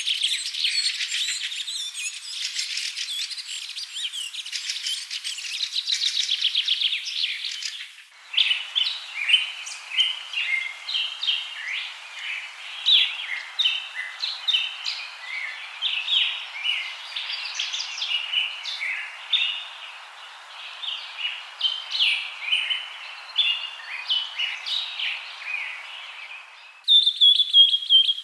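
Wild forest birds calling and singing. For the first eight seconds there is a dense, fast, high chattering trill. After a sudden cut comes a busy run of short, varied chirps and whistled notes, and near the end another clip starts abruptly.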